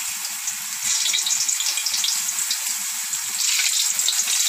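Thin raw potato slices deep-frying in hot oil in a stainless steel pan: a steady, dense crackling sizzle with many small pops. The slices have just been added.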